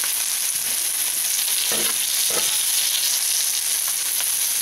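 Honey mushrooms sizzling in hot oil in a frying pan as they are stirred with a fork, with a few faint scrapes against the pan about two seconds in. The mushrooms are fried through and done.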